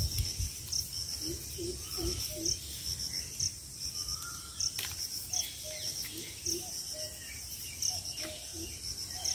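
A cricket chirping, a short high chirp repeated about once a second, with other short, lower calls of wild creatures mixed in.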